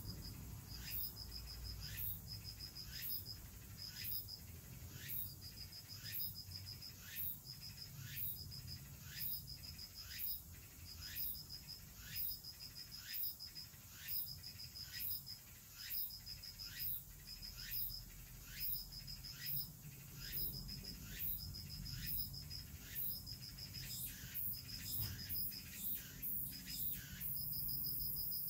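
Insects singing: a cricket's short pulsed trills, high-pitched and repeating about once every second and a half, over a second insect's sharp regular ticks at a little more than one per second.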